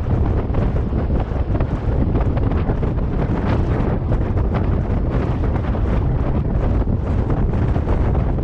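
Strong sea wind blowing across the microphone: a loud, steady rumble of wind noise.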